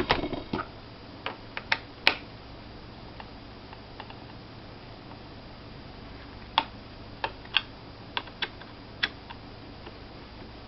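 Irregular sharp clicks and taps of a small Phillips screwdriver working the screws of a laptop's plastic hard-drive cover panel, a cluster near the start and another after about six seconds.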